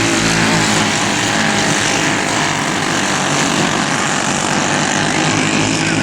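Briggs & Stratton Animal single-cylinder kart engines running at racing speed, a steady loud engine drone whose pitched note thins out in the middle and comes back stronger near the end.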